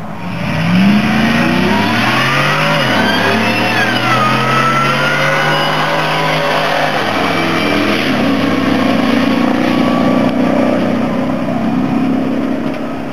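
Ford SVT Lightning pickup's V8 accelerating hard down a drag strip, its pitch climbing and dropping sharply at gear changes about 3 and 7 seconds in. After that it runs at a steadier pitch and fades near the end. This is the run on which the engine throws a rod.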